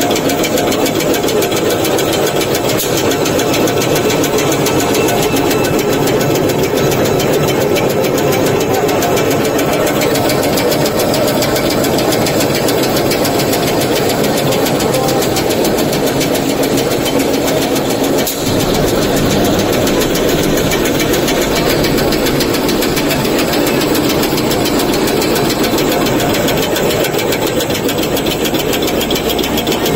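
Double-layer napkin folding machine running steadily under test: a loud, fast, even mechanical rattle of the folding and cutting mechanism.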